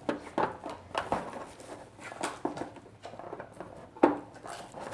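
Screwdriver working screws out of a plastic toy car: scattered small clicks and knocks of metal on plastic and screw, the loudest knock about four seconds in.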